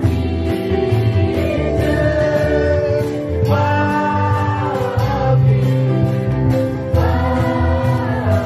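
Live praise-and-worship song: men and women singing together into microphones over guitar and keyboard accompaniment, holding long notes.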